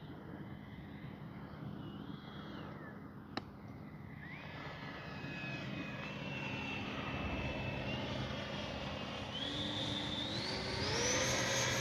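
The 70 mm electric ducted fan of an E-flite F-16 RC jet whining in flight. From about four seconds in, its pitch climbs in steps and it grows louder as the fan speeds up. A single sharp click comes a little after three seconds.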